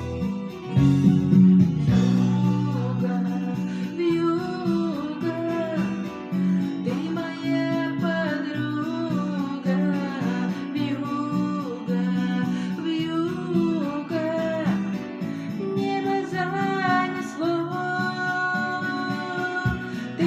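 A song: guitar accompaniment with a singing voice coming in about four seconds in.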